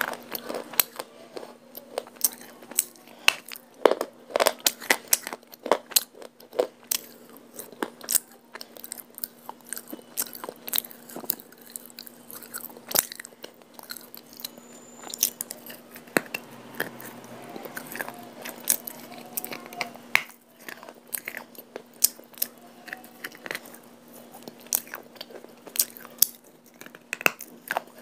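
A person biting and chewing pieces of a dry, chalky white clay chunk close to the microphone: sharp, irregular crunches and crackles, with a faint steady hum underneath.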